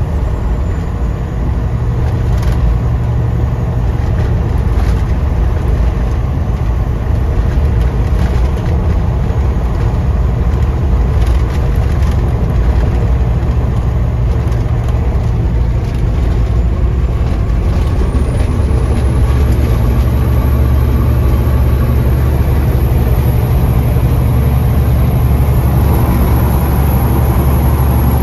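Heavy truck's diesel engine running steadily under a load, a loud low drone heard from inside the cab.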